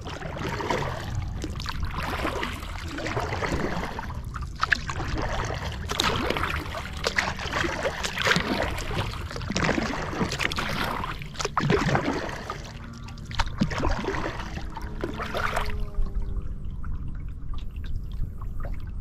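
Kayak paddle strokes: water splashing and dripping off the paddle blades, about one stroke a second, stopping about 16 seconds in. A steady low rumble runs underneath.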